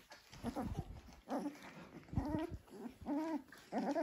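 Dalmatian puppies whimpering: a string of about five short, wavering whines.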